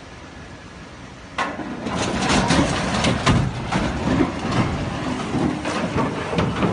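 A low steady hum, then about a second and a half in a sudden crash that runs on as a dense rumbling clatter of falling rock and debris, with many separate impacts.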